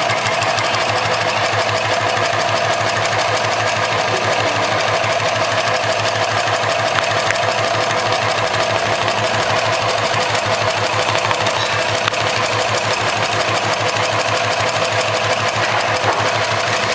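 Cowboy 71008 heavy-duty automatic pattern sewing machine running steadily, stitching a box-and-cross pattern through thick polyester sling webbing: a fast, even clatter of needle strokes.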